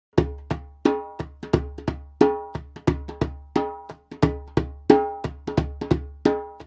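Djembe hand drum played in a steady rhythm of about three strikes a second, the louder accented strokes coming roughly every two-thirds of a second. Each stroke gives a sharp attack with a short ringing tone over a deep bass thud.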